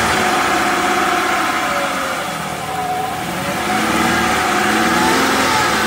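Mazda MPV's 3.0 L V6 engine running and being given a little gas, its note dipping about two seconds in and climbing again near the end. The engine is run up while exhaust back pressure is measured at the O2 sensor port to check for a clogged catalytic converter.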